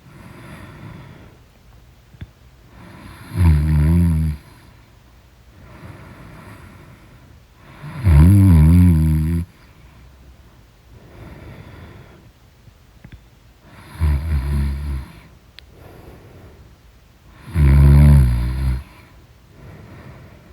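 Loud snoring in deep sleep: four long, rasping snores come roughly every four to five seconds, with quieter breathing between them.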